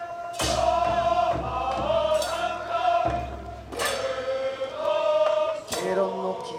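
A group of men singing a festival boat song in unison, with a sharp struck percussion hit about every two seconds.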